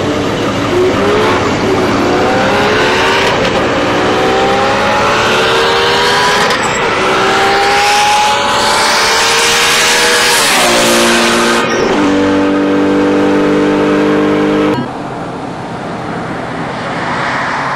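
A vehicle engine accelerating hard through the gears, its pitch climbing and falling back at each shift, then holding a steady pitch. About fifteen seconds in the sound cuts abruptly to a quieter engine sound.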